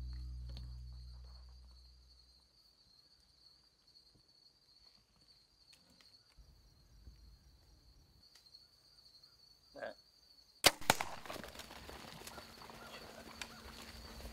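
A Mathews compound bow is shot at a whitetail buck with a single sharp crack a little over ten seconds in, followed by a few seconds of rustling and thumping as the hit buck runs off through the brush. Before the shot, background music fades out over the first couple of seconds.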